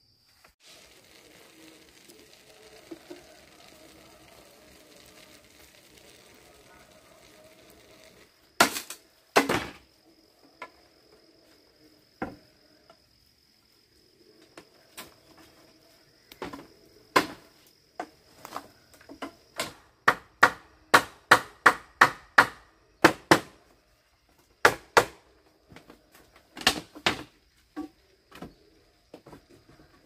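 A series of sharp, irregular blows from a hand tool striking hard material, such as hammering or chopping. They begin a little over a quarter of the way in and come fastest, about two a second, past the middle. A steady high insect trill runs underneath.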